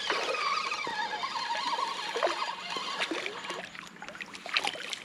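Shallow creek water splashing and trickling, with many small splashes and knocks as a fish is handled at the surface. A thin, wavering tone that falls slightly runs through the first three seconds.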